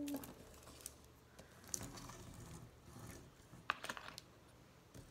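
Small toy plane with tiny plastic wheels rolled and tapped across paper on a tabletop: faint light scraping with scattered small clicks, the sharpest click a little before four seconds in.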